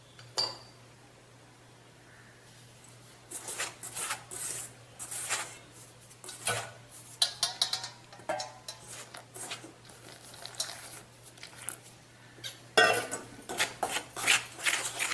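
Fingers mixing red rice flour with warm water in a stainless steel bowl, scraping and knocking against the metal, with clinks of a steel vessel on the rim. A single tap comes about half a second in, then a short quiet stretch, and the scraping starts about three seconds in and grows busier near the end.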